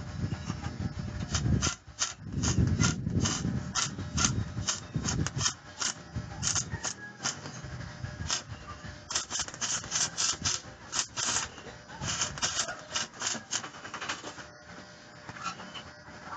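Electric arc welding tacking steel tubing: the arc crackles and sputters in short irregular bursts, densest in the middle and thinning out near the end. In the first few seconds the metal tubes rub and scrape as they are handled into position.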